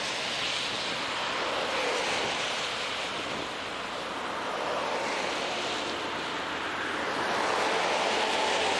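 Steady rushing noise of wind on a handlebar-mounted action camera's microphone while cycling, mixed with the tyre roar of passing road traffic. It swells near the end as a vehicle passes close alongside.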